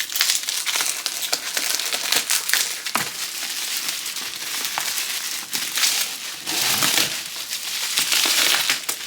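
Bubble wrap and plastic packaging crinkling and rustling with sharp crackles as a parcel is unwrapped by hand.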